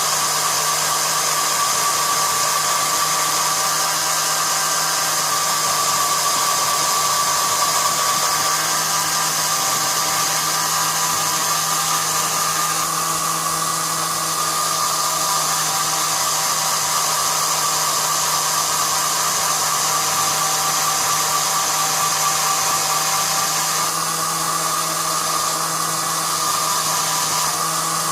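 Cordless-drill motor and gearbox, run as a home-made mini lathe, spinning at a steady speed with a constant whine.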